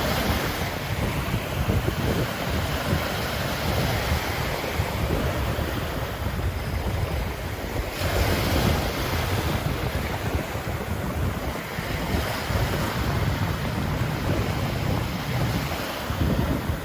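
Ocean surf breaking and washing up on a sandy beach: a steady rush of water, with a louder wave breaking about eight seconds in.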